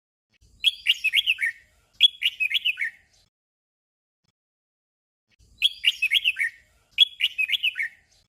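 Red-whiskered bulbul singing a short phrase of quick falling notes twice in a row, the 'doubled' song. After a pause of about two and a half seconds, the same doubled phrase comes again.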